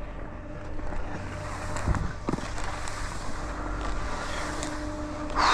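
Skis sliding over packed, tracked snow, a steady rushing swish with a couple of low knocks about two seconds in and a short louder burst near the end.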